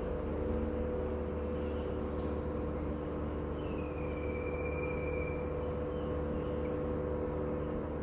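Steady high-pitched insect chorus, over a low steady hum. Around the middle a faint whistle slides down, then holds for a second or so.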